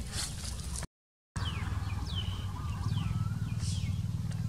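A brief dropout about a second in, then a steady low hum under several short, high animal calls that fall in pitch.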